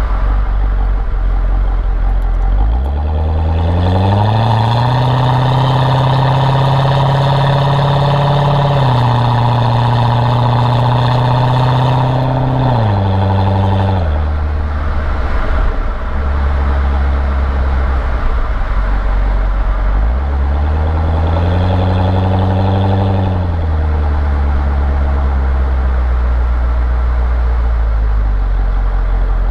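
Chevrolet Corvette C6 V8 engine idling, then revved up about three seconds in and held for roughly ten seconds before dropping back to idle. It is revved again for a few seconds near the two-thirds mark and returns to a steady idle.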